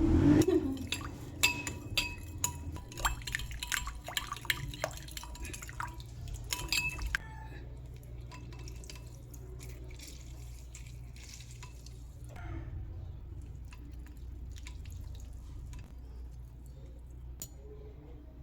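Kitchen work with glassware and liquid: a quick, irregular run of sharp clinks, some ringing briefly, over the first seven seconds, then only a low steady hum.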